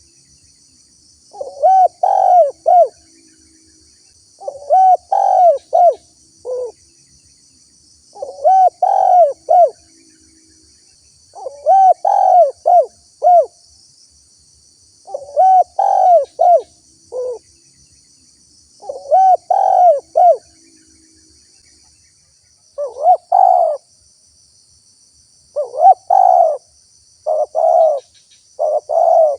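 Spotted dove cooing: loud phrases of three or four coos, repeated every three to four seconds, turning into shorter, quicker bursts of coos near the end.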